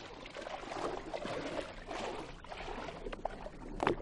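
Shallow seawater splashing and sloshing around small fishing boats as men wade beside them, with a sharp knock near the end.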